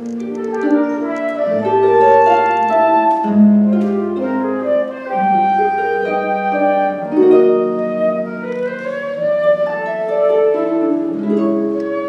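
Flute and concert harp playing a duet: the flute carries a melody of held and moving notes while the harp plucks chords and low bass notes beneath it.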